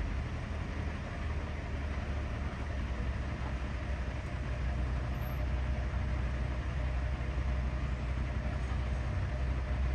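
A vehicle engine running steadily with a low rumble.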